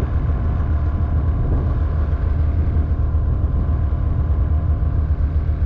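An 850 two-stroke snowmobile engine running steadily at an even pitch, without revving up or down.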